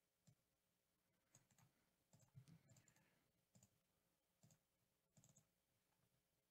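Faint computer mouse clicks, roughly one a second with some in quick pairs, as a button on a web page is clicked over and over; otherwise near silence.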